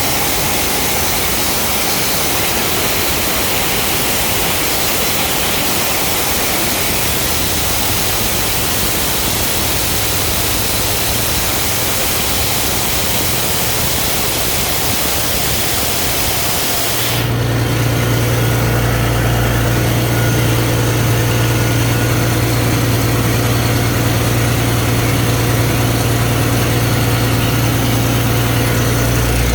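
Ingersoll Rand 21 bar, 750 cfm portable air compressor running steadily, with a loud hiss of air over the engine note. About 17 seconds in, the hiss cuts off suddenly and the low engine drone becomes stronger and slightly louder.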